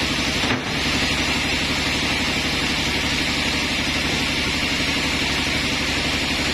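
Sawmill machinery running steadily, an engine-driven mill with a fast even pulse and a strong hiss over it, with a very brief break about half a second in.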